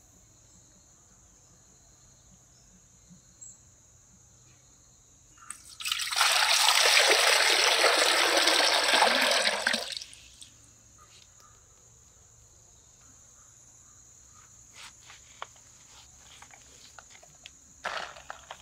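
Water pouring in a loud, steady rush for about four seconds, starting about six seconds in, followed by a few light taps and clicks. A faint steady high whine runs underneath throughout.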